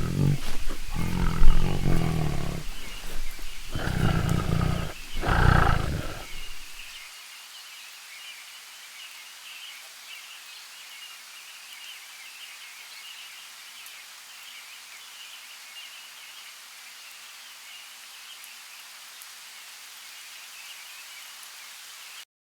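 A big cat roaring in a series of four deep, loud calls over about six seconds. After that, only faint, steady high chirping of insects or birds in the background.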